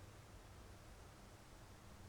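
Near silence: the faint, steady hiss of a stream, like soft white noise.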